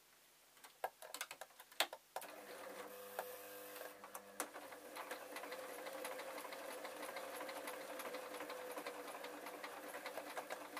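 Singer sewing machine starting up about two seconds in, after a few clicks of handling, then stitching steadily at an even speed with a constant hum and rapid needle ticking.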